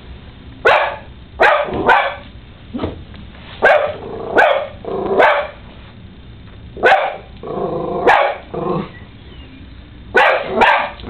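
Toy Manchester Terrier barking in short, sharp barks, about ten of them with pauses between, plus a longer, lower bark around eight seconds in. This is wary barking at a mounted rhino head.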